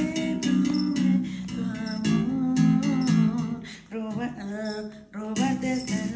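Electric bass guitar plucked with the fingers, playing a run of low notes in rhythm, with a voice singing along over parts of it.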